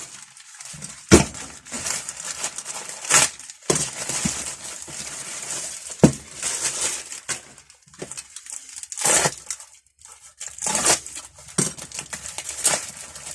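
Parcel packaging being torn open and unwrapped by hand: irregular crinkling and tearing of the wrapping, with a few sharp knocks.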